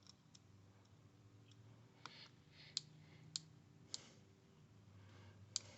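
Near silence broken by about five faint, sharp little clicks spread through the second half, from small tools and parts being handled on a smartphone under repair.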